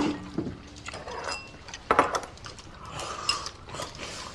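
Tableware knocking and clinking at a meal: a sharp knock right at the start, another about two seconds in, and a few lighter clinks between.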